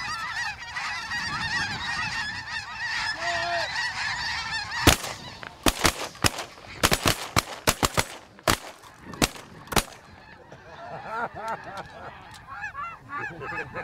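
A large flock of snow geese calling overhead, a dense chorus of overlapping honks. About five seconds in, a volley of shotgun fire from several hunters breaks out, about a dozen shots over some five seconds with the first the loudest, and then the geese go on calling more faintly.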